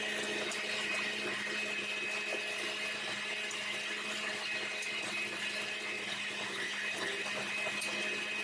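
Countertop blender running at a steady speed, its motor giving an even whine as it blends a mixture of foods and liquids.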